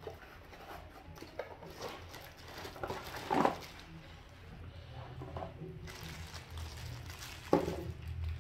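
Unboxing handling: a cardboard box flap is opened and a mini tripod in a plastic bag is slid out and set down, with irregular plastic and cardboard rustling. Two louder short bumps stand out, about three and a half seconds in and near the end.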